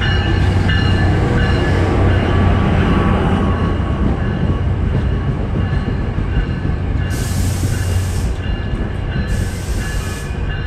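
Diesel-hauled commuter train at the platform, its locomotive's engine running with a steady low drone. Two bursts of air hissing come in the second half.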